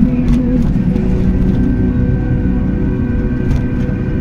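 Motor vehicle driving along a city street: a steady engine and road rumble.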